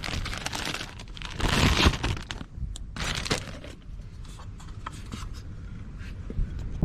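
Hands handling the MAF sensor and its parts: several short bursts of rustling and scraping, with a few light clicks in between.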